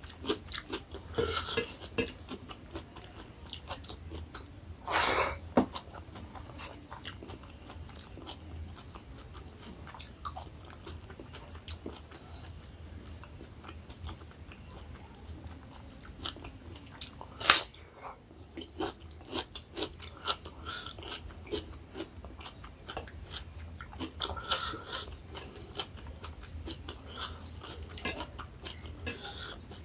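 Close-up sounds of a person eating rice and curry: steady biting and chewing with many small wet clicks and occasional crunchy bites. A few louder bites stand out, and one sharp click is the loudest past the middle.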